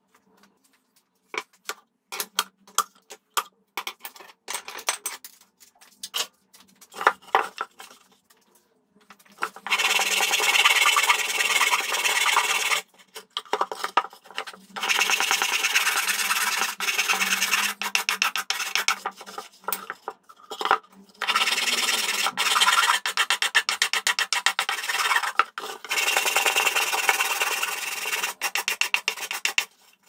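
Scattered light knocks and clicks, then from about ten seconds in, four spells of dry rubbing and scraping of wood by hand with an abrasive, each lasting a few seconds with short pauses between.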